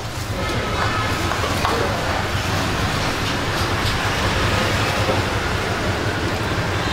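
A steady roar of background noise with a few faint clinks, fitting a ladle against a steel stockpot and a bowl while pho broth is served.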